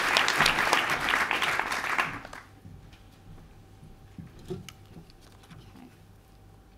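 Audience applauding, the clapping dying away about two seconds in; then a quiet room with a few faint knocks.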